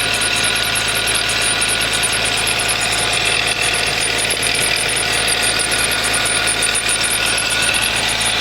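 Mazda CX-7 engine idling steadily, with a constant high-pitched whistle mixed into its running. The owner traces the whistle to a valve.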